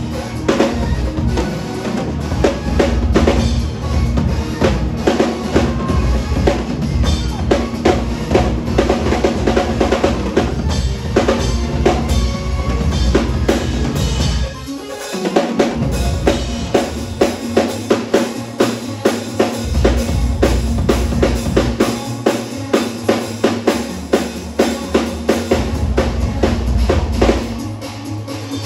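Premier acoustic drum kit played hard in a fast, busy pattern: dense snare and cymbal strokes over bass drum, with a short break about halfway through.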